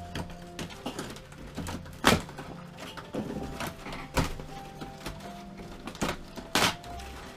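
Sharp knocks and cracks from old camper wall paneling being pried loose by hand, several strokes spaced a second or two apart, the loudest about two seconds in.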